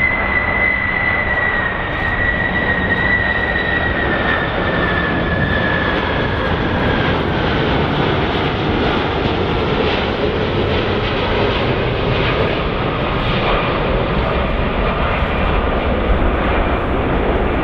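Airplane engine noise during a landing: a steady loud rush with a high whine that slowly falls in pitch over the first several seconds.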